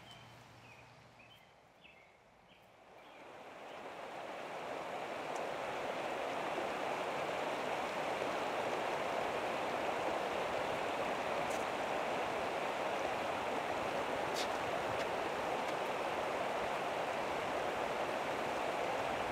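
Steady rushing of flowing water that swells up over the first few seconds and then holds even, with a couple of faint ticks.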